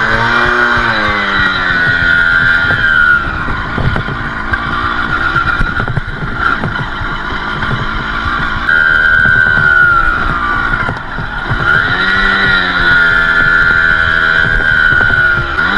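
Balkan 50's small single-cylinder two-stroke engine running under way on a dirt trail, its revs rising and falling again and again with the throttle, easing off for a few seconds in the middle.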